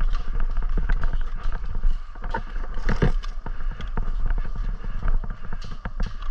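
Footsteps and rustling through dry undergrowth, a string of irregular crackles and knocks with one louder thump about three seconds in, over a steady low rumble.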